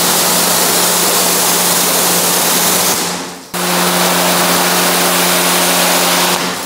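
Pressure washer spraying a high-pressure jet of water onto a car's rear glass and tailgate, a loud steady hiss over the hum of its pump. The spray cuts out briefly about three seconds in, starts again, and stops near the end.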